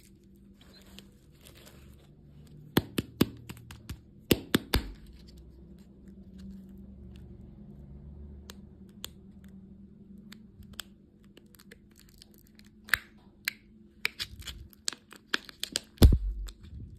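Candy packaging being torn open and crinkled by hand: clusters of sharp crackles and tearing, the loudest near the end.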